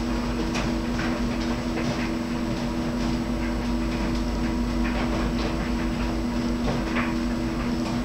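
Clothes dryer running: a steady motor hum and low drum rumble, with irregular knocks as the load of laundry tumbles and drops inside the turning drum.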